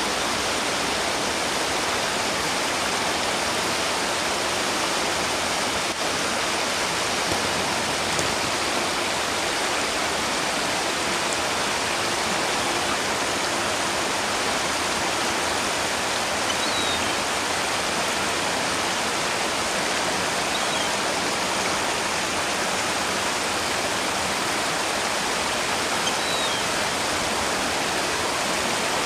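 Shallow river water rushing over rocks in a riffle, a steady even rush. A few faint high chirps break through it in the second half.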